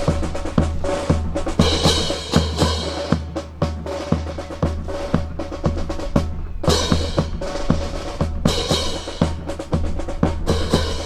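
Music with a steady drum-kit beat, bass drum and snare, over a sustained bass line.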